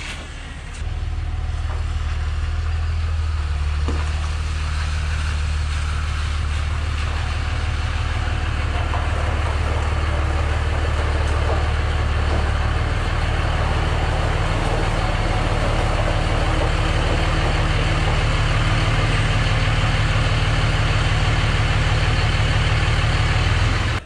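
Cummins diesel engine of a 2005 Dodge Ram 2500 pickup running steadily at low speed as the truck drives in and parks. The drone gets louder about a second in.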